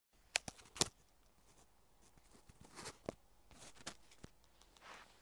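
Faint handling noise close to a handheld camera: three sharp clicks in the first second, then soft crunching swishes about once a second, like footsteps shifting on snow.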